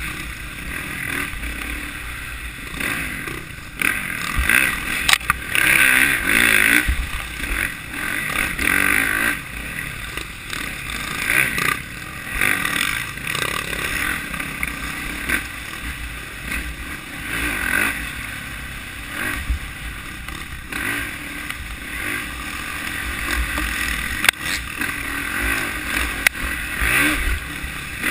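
Dirt bike engine heard from on board, its revs rising and falling as the bike is ridden along a rough woods trail, with occasional knocks from the bike over the ground.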